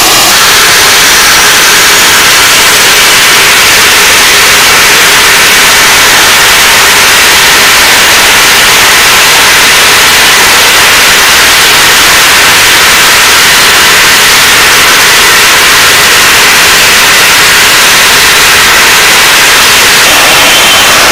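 RF-4E Phantom's General Electric J79 turbojet engines running on the ground, heard close behind the exhaust nozzles: a steady, very loud rushing noise that overloads the recording.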